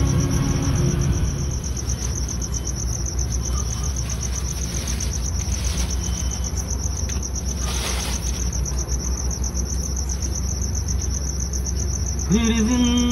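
Crickets chirping in a fast, even trill over a low steady hum. A couple of brief rustles of a plastic bag come in the middle, and singing starts near the end.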